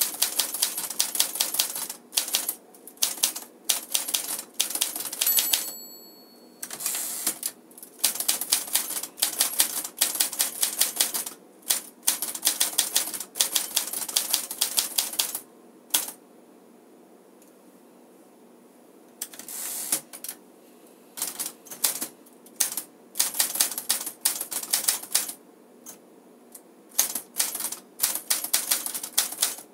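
Typing on a 1956 Smith-Corona Silent Super manual typewriter: fast runs of keystrokes and typebar strikes in bursts, with a pause of about three seconds midway. A brief ringing tone sounds about five seconds in. The machine's typing is exceptionally quiet for a manual typewriter.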